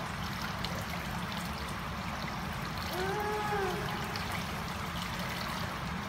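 Pool water trickling and lapping steadily. About three seconds in, a brief voice rises and falls in pitch.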